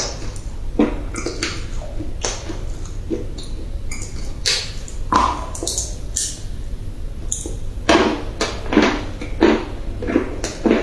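Dry clay crunching and crumbling in a run of irregular, crisp crunches that come more thickly near the end, over a steady low hum.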